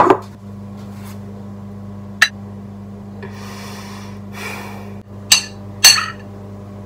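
Crockery and a metal spoon: a loud knock as a ceramic bowl is set down, a lighter clink about two seconds in, and two sharp clinks of the spoon against the plate near the end as rice is served. A breathy sigh in the middle, all over a steady low hum.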